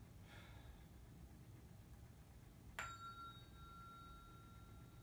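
A tuning fork struck once, about three seconds in: a sharp tap, then a clear, steady high ring that carries on.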